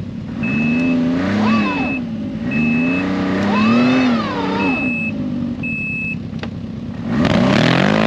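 Ski-Doo Expedition snowmobile's 900 engine revving up and down while a reverse warning beeper gives six short beeps about a second apart as the sled backs up for a run. About seven seconds in, the engine is opened up hard to yank a four-wheeler stuck in deep snow out on a tow strap.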